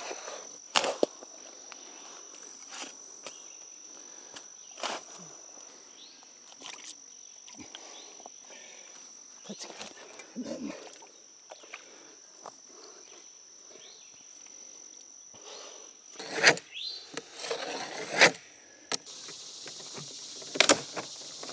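A steady high-pitched insect drone, like crickets, over scattered knocks and scrapes from digging in wet ground and setting concrete blocks. In the last few seconds come several louder thumps and the crackle of a large stiff plastic sheet being handled.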